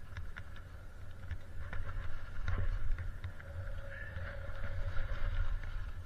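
Skis sliding through snow on a run through trees, with wind buffeting the camera microphone as a steady low rumble and scattered short knocks from bumps in the snow.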